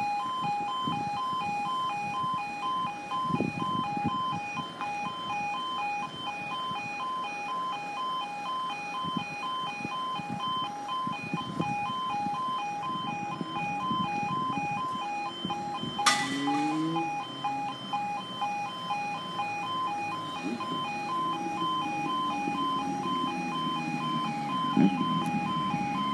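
Level crossing warning alarm sounding continuously as an evenly repeating, pulsing two-tone alarm, warning road users of an approaching train. A single sharp click about 16 seconds in.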